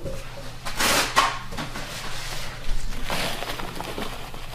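Plastic food container handled and its lid wiped by hand: two spells of scuffing and rustling, about one second in and again about three seconds in.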